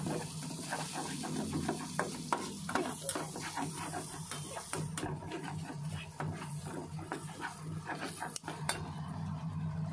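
Chopped red onion and garlic sizzling in melted butter in a stainless steel pan. A spatula stirs them, scraping and clicking against the pan several times a second.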